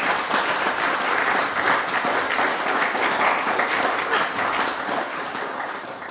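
Audience applauding: dense, steady clapping from a seated crowd that begins to tail off near the end.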